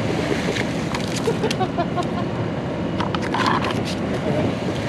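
Steady background rumble, with a few short crinkles of a clear plastic bag about three seconds in as a speckled trout is put into it.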